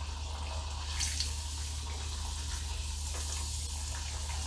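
Spiral-cut potato deep-frying in hot oil in a wok: a steady sizzle and bubbling, with a low steady hum underneath.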